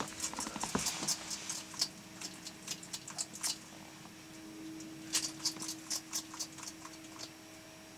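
Bearded dragon eating Dubia roaches from a stainless steel bowl: quick, crisp clicks and crunches in clusters, with short pauses between them.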